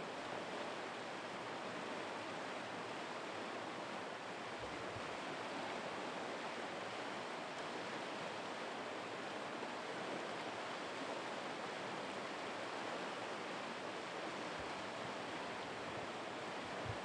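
Floodwater flowing fast, a steady rushing of water.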